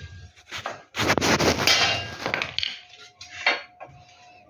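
A hammer knocking on metal to fit a new seal into a Whirlpool top-load washing machine: a couple of single knocks and, about a second in, a quick run of clattering taps.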